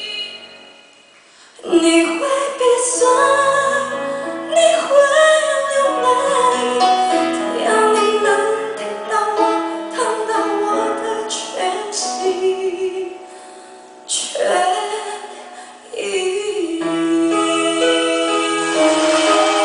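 Music: a slow song with a singing voice over instrumental accompaniment. It drops away briefly about a second in and dips again before picking up.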